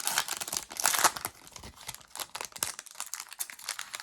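Foil wrapper of a basketball trading-card pack crinkling and being torn open, a dense rapid crackle that is loudest about a second in and tails off into faint handling sounds.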